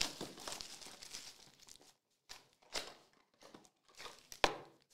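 Foil wrapper of a trading card pack crinkling and crackling as it is handled, with scattered sharp crackles and the loudest snap about four and a half seconds in.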